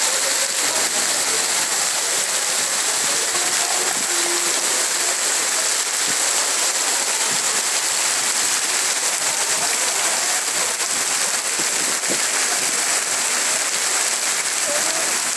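Heavy tropical rain pouring down in a dense, steady hiss as it beats on wet cobbled paving and wooden café tables.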